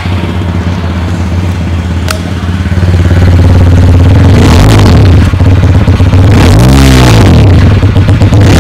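TVS Apache RTR 160 4V's single-cylinder engine running through its new single-outlet exhaust, idling and then revved up and let back down a couple of times, at about four and a half seconds and again near seven seconds.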